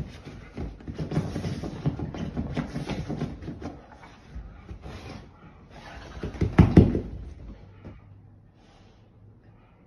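A dog thrashing about on a couch, rolling and digging in blankets: fabric rustling, paws scrabbling and thumping on the cushions, loudest in a burst about seven seconds in. It is the post-bath frenzy of a freshly washed dog.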